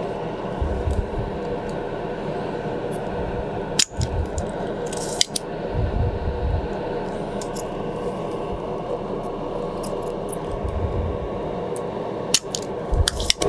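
Manual spring-loaded desoldering pump snapping as it is fired at solder on a mouse circuit board's switch pins: a few sharp clicks, about four and five seconds in and twice near the end, over a steady background noise.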